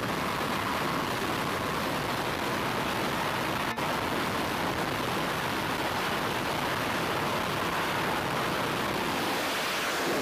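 F/A-18 fighter's twin jet engines run at full power on a carrier catapult, a steady loud rushing noise while the launch signals are given.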